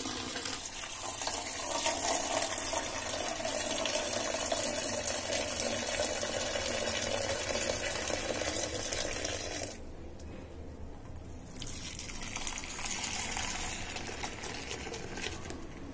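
Boiled milk poured from a height into a small steel bowl, a steady splashing pour meant to froth the milk. The pour stops for about two seconds partway through, then a second pour starts.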